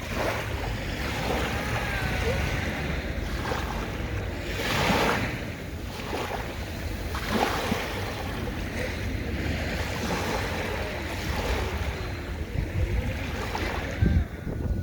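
Sea waves washing onto a sandy beach, one wash swelling loudest about five seconds in, with wind rumbling on the microphone throughout and a few low wind thumps near the end.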